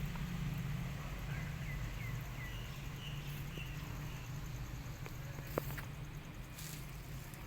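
Outdoor background with a steady low rumble. A run of short, repeated high chirps comes in the first few seconds, and a single sharp click a little past halfway.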